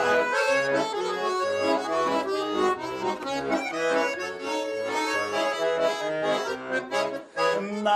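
Accordion playing an instrumental interlude of a Russian folk song between sung verses, with a regular rhythmic beat in the bass.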